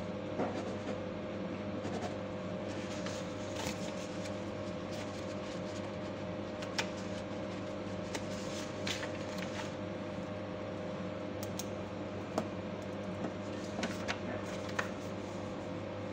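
Steady low hum of ship's machinery aboard an LPG carrier, with a few scattered sharp clicks and taps.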